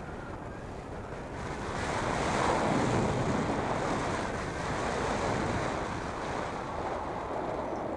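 Wind rushing over the microphone of a hang glider in soaring flight: a steady rush that swells louder for a few seconds in the middle and eases near the end.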